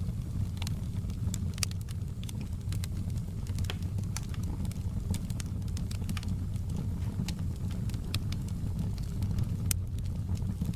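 Wood fire crackling in a fireplace: irregular sharp snaps and pops, several a second, over a steady low rumble of the flames.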